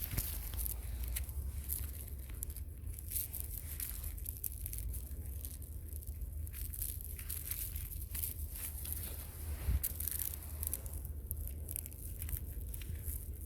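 Forest ambience: a steady low rumble, like wind on the microphone, under continuous light crackling and rustling.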